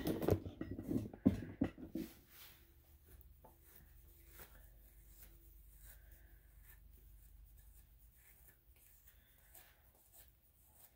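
Grooming comb and slicker brush drawn through a dog's long ear fur: soft, repeated scratchy brushing strokes. Louder rustling and knocks of handling in the first two seconds.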